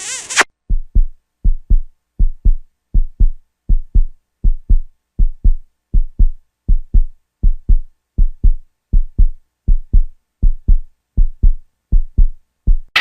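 Heartbeat sound effect: a steady lub-dub of paired low thumps, a little more than one beat a second, starting about half a second in as the preceding music cuts off.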